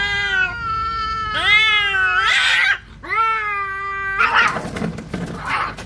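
Two domestic cats, a Siamese and an orange-and-white cat, caterwauling in a territorial standoff. One long yowl rises and falls and breaks off near three seconds in. A second yowl follows, then from about four seconds in come harsh hissing and spitting bursts.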